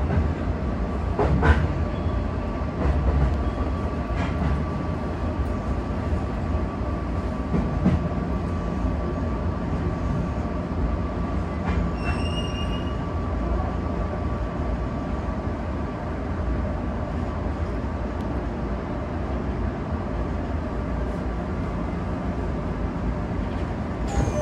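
Tokyo Metro 18000-series electric train heard from inside the driver's cab as it pulls out of a station: steady running and motor noise with wheel sounds on the rails. A sharp click comes about a second and a half in, and a brief high tone about halfway through.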